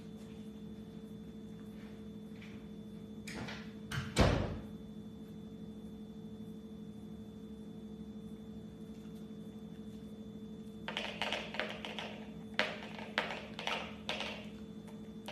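A door shutting with one loud thud about four seconds in, over a steady low hum. From about eleven seconds on, runs of light clicks: a small dog's claws on a hardwood floor as it walks over to the spoon.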